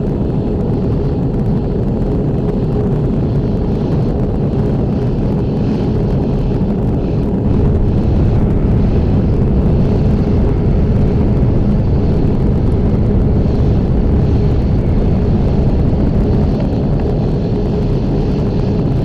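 Jet aircraft in flight: a steady, dense low rumble of engine and air noise with a faint high whine above it, getting somewhat louder about seven or eight seconds in.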